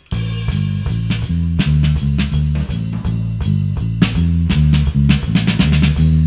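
An instrumental band starts playing together: a prominent bass guitar line, guitar and drum kit in a funky groove.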